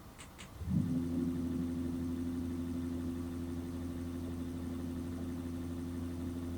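Minn Kota Ultrex trolling motor's lower unit running steadily at speed 2, a constant electric-motor hum with several fixed tones. It starts about a second in.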